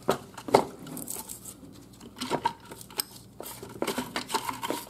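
Irregular scraping, clinks and taps of hand tools against a metal mower gearbox housing as old packed grease and dirt are cleaned out of it.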